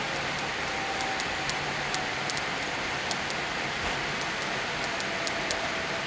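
Steady cabin noise inside a Boeing 787-8 airliner rolling on the ground after landing: the even rush of engines and air, with a faint low hum, with scattered faint clicks throughout.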